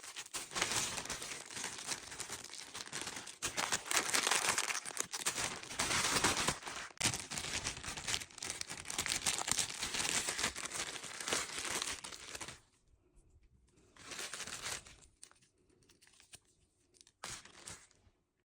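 Packaging being crinkled and torn open by hand: a long stretch of steady rustling and ripping, then a few shorter rustles. It stops abruptly near the end.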